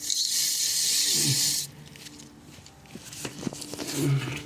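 Aerosol can of brake cleaner spraying in a steady hiss, cutting off about a second and a half in, used to degrease spilled engine oil. Quieter handling sounds follow.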